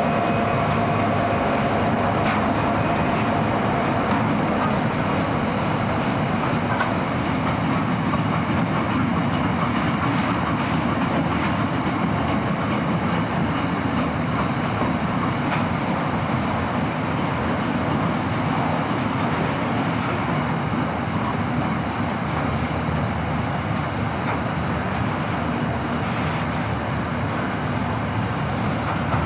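Container wagons of a freight train rolling past, a steady noise of steel wheels on the rails.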